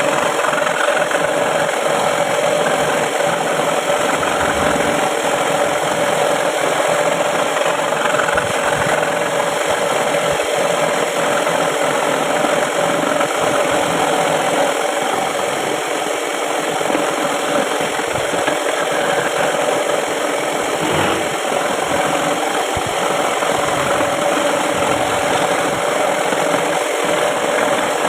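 Homemade scroll saw running steadily, its motor and reciprocating blade making an even mechanical buzz with a steady hum throughout.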